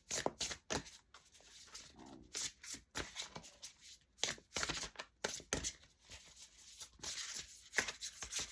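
A deck of oracle cards being shuffled by hand: many quick, irregular rustles and taps of card against card.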